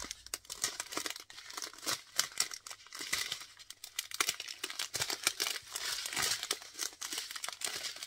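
A strip of clear plastic bags holding diamond-painting resin drills crinkling as it is handled, an irregular, continuous plastic rustle with small clicks.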